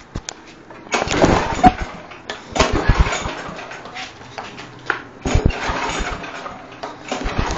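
Briggs & Stratton lawn mower engine being pull-started: about four yanks of the recoil starter, each spinning the engine briefly before it dies away, and it does not catch.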